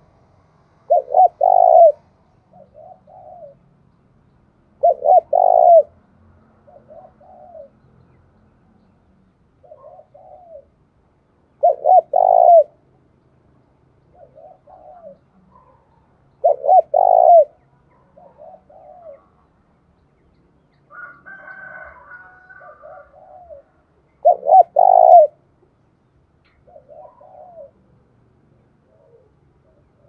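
Spotted dove cooing: five loud coo phrases several seconds apart, with softer coos in between. A brief higher-pitched sound comes about two-thirds of the way through.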